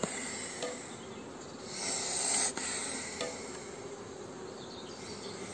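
Honeybees buzzing on the frames of an open mating nuc: a steady hum. About two seconds in there is a brief louder rustle that ends in a short click.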